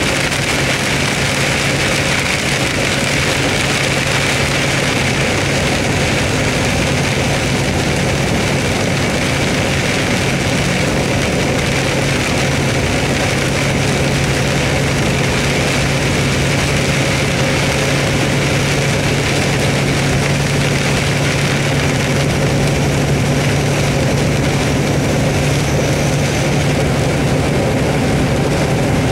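Hard rain beating steadily on a vehicle's roof and windshield, heard from inside the cabin over the constant low hum of the running engine.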